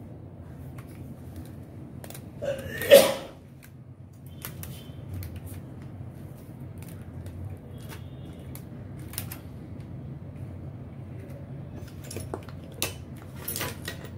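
Hands handling an iPhone XR while stretching elastic bands around it to clamp the freshly glued back glass: scattered light clicks and taps, with one louder rustling knock about three seconds in, over a steady low hum.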